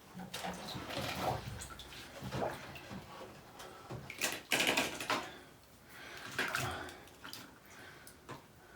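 Floodwater in a basement splashing and sloshing in irregular bursts a second or two apart.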